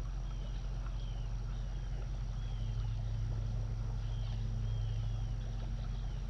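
Steady outdoor creek-side background: a low rumble and an even hiss, with faint short bird chirps repeating every second or so.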